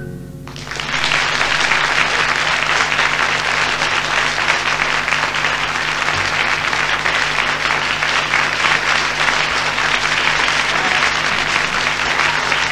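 Audience applauding, breaking out about half a second in as the music ends and holding steady throughout.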